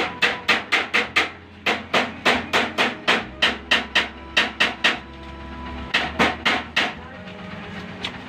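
Hammer striking metal in quick runs of blows, about four to five a second, with two short pauses; faint metallic ringing carries between the blows.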